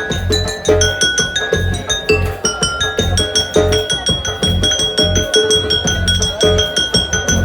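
Instrumental music: a fast, steady percussive beat with ringing, bell-like pitched notes over a low bass line.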